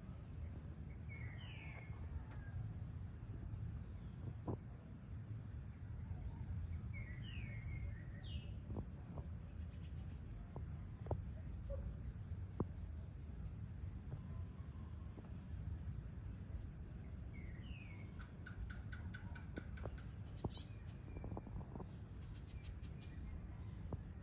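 Evening outdoor ambience: a steady high-pitched insect drone over a low background rumble, with a few short bird chirps at intervals and a brief bird trill near the end.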